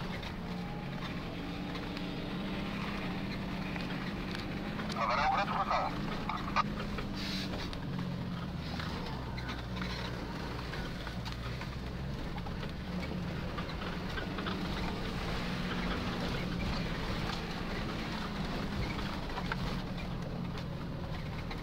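Nissan Patrol 4x4 engine running steadily while driving slowly off-road, heard from inside the cabin. A brief louder noise stands out about five seconds in, with a single knock just after.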